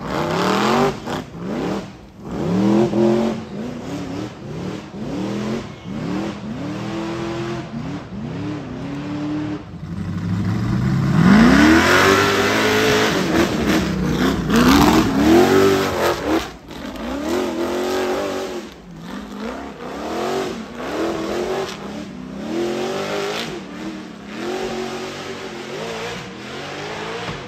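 Off-road race vehicle's engine revving hard in repeated bursts, its pitch rising and falling again and again as the throttle is worked. It is loudest in a long climbing rev about halfway through.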